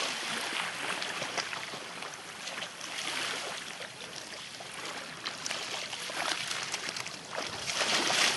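Shallow lake water splashing and lapping around a wading, swimming dog, with louder splashing near the end as the dog churns back toward shore.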